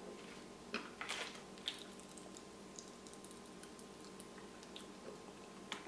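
Faint, scattered clicks and crackles of cola popping candy being eaten, a few sharp ticks in the first two seconds and a couple more later, over a low steady hum.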